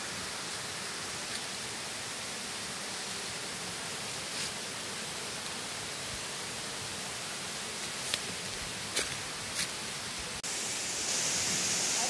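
Steady rushing of waterfalls heard from a distance, with a few brief clicks. About ten and a half seconds in it cuts to a louder, hissier rush from a falls close by.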